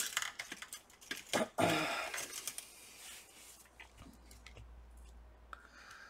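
Light clicks, taps and a brief scrape of hands and a small tool handling an opened laptop's internal parts, several quick clicks in the first two seconds, then quieter.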